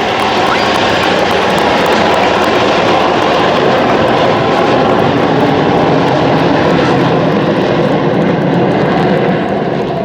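Loud, steady engine noise of military jet aircraft flying past, easing slightly near the end; most likely the Frecce Tricolori's Aermacchi MB-339 jets.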